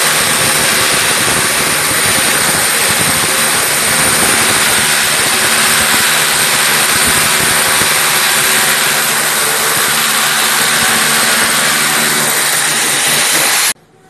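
Corded electric hammer drill boring a hole into the wall. It runs steadily at full speed with a steady motor tone, then cuts off suddenly near the end.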